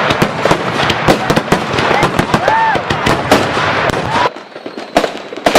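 Fireworks going off in a rapid string of sharp bangs and crackles that stops suddenly about four seconds in, followed by a couple of last bangs.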